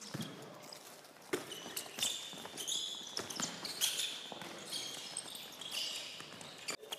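Handball players' shoes squeaking on the sports-hall court during a drill, mixed with scattered thuds of the handball bouncing, being passed and caught.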